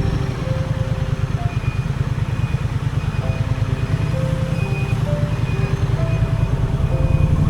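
Triumph Scrambler 900's parallel-twin engine running steadily on the road, with music laid over it.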